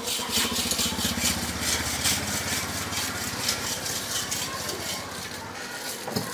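A small motorbike engine running with a low hum that dies away about halfway through, over repeated light clicks and rattling.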